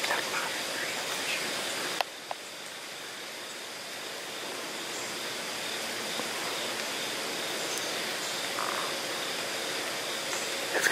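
Steady rushing outdoor background noise with a faint steady high tone over it; a sharp click about two seconds in, after which the noise is somewhat quieter.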